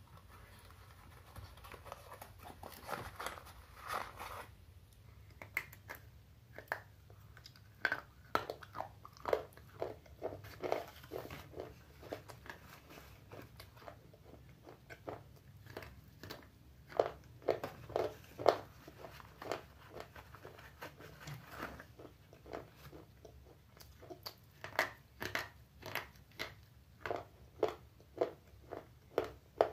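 Slate pencils bitten and chewed close to the microphone: a run of sharp, dry crunches, about one to two a second, some in quick clusters, with short pauses between bites.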